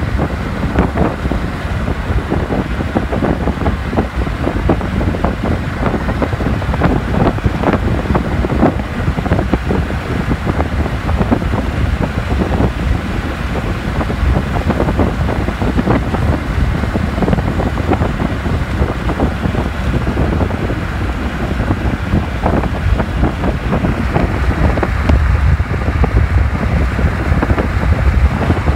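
Wind buffeting the microphone over the steady road noise of a moving car, with a heavy low rumble and crackling gusts.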